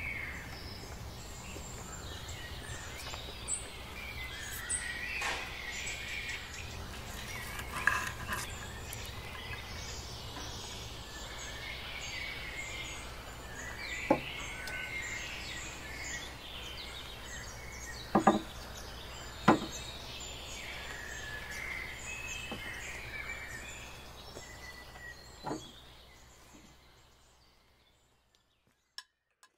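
Outdoor ambience with birds chirping over a steady low background rumble. A few sharp clinks come about halfway through and again later. The sound fades out to silence near the end.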